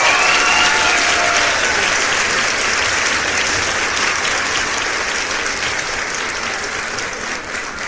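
Crowd applauding, with cheering over the clapping in the first second or so; the applause slowly dies down.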